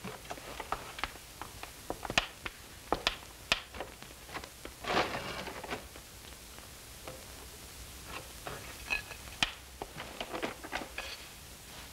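Irregular small knocks and clicks of a plate and its contents being handled while seated, with a brief scraping rustle about five seconds in.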